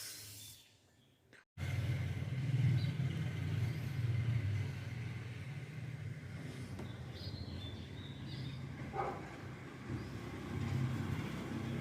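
Steady low rumble of a motor vehicle running, with traffic-like noise. It starts abruptly about a second and a half in and cuts off at the end, with a few faint high chirps partway through.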